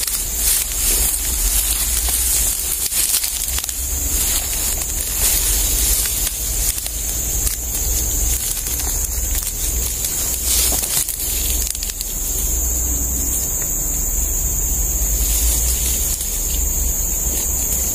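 Ferns and undergrowth rustling and crackling as people push through them on foot, with many small snaps of fronds and stems. A steady high hiss runs underneath.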